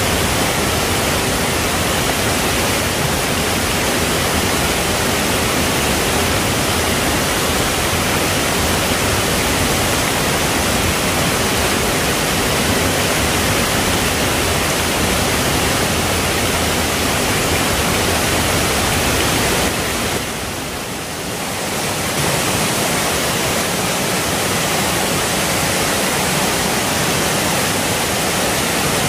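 Steady rushing of water over the rocks of a shallow forest stream, with a brief dip in level about two-thirds of the way through.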